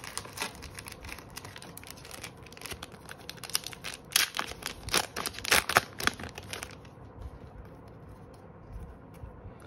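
Pokémon card booster pack wrapper being torn open and crinkled: a dense run of sharp crackles, loudest about four to six seconds in, stopping about seven seconds in.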